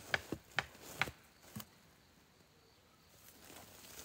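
A quick run of sharp knocks, about two a second, that stops about a second in, with one more knock shortly after. Near the end comes a soft rustle of leaves and twigs as a dug-up tree stump is lifted.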